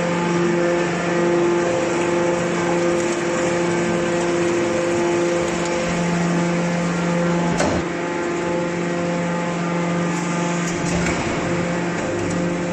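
Motor of a homemade aluminium can baler running with a steady hum. There is a short knock about halfway through and another near the end.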